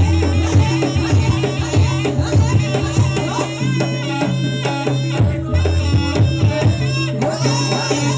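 Jaranan campursari music played live: drums beating a busy rhythm over sustained bass notes that shift pitch every few seconds, with a melody line above.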